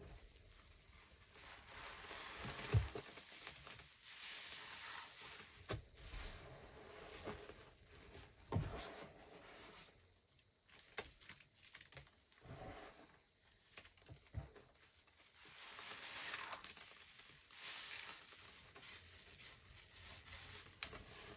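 Hands squeezing and kneading a kitchen sponge soaked in wet, foamy scouring-powder paste: faint, irregular squelching and crackling of foam, with a couple of dull thumps about 3 and 9 seconds in.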